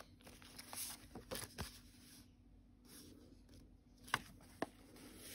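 Faint rustling and sliding of paper pages as a handmade journal is leafed through and a card tag is handled, with a few light taps and clicks, the sharpest about four seconds in.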